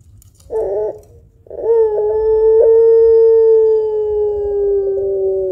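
Puter pelung dove cooing: a short note about half a second in, then one long, drawn-out coo held for about four seconds, sinking slightly in pitch toward the end.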